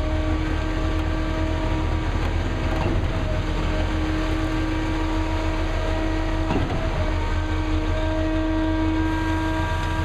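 Heavy diesel engine of a concrete pumping truck running steadily, with a pitched whine that fades in and out. Two short knocks about three and a half seconds apart.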